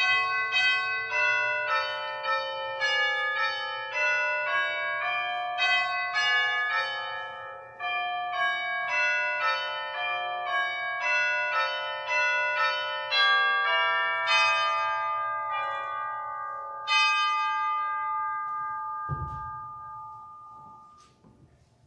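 Church bell chimes playing a melody, about two to three struck notes a second, each note ringing on over the next. The tune ends on a final note about three-quarters of the way through that slowly dies away.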